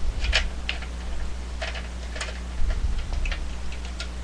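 Irregular small clicks and ticks of screws being worked out of a TV's casing and handled, with a couple of dull bumps, over a steady low electrical hum.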